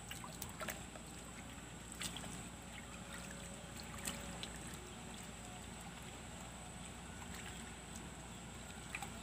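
Faint, steady outdoor background noise with a few soft ticks scattered through it.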